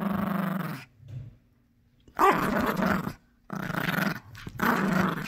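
Yorkshire terrier growling as it bites and tugs at a plush squeaky toy in a tug-of-war, in four bouts with short breaks between.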